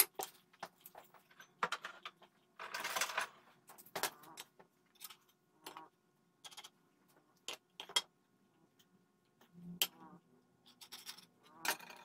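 Small handling noises on a wooden workbench: sharp clicks and light knocks as a pencil, wood pieces and a metal combination square are picked up and set down, with a short scraping rustle about three seconds in.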